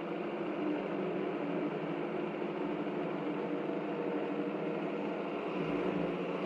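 A steady mechanical hum with a few low, unchanging tones under an even hiss.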